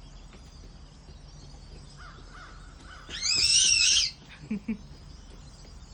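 A bird gives one loud, harsh call about three seconds in, lasting about a second, with fainter calls from the flock around it.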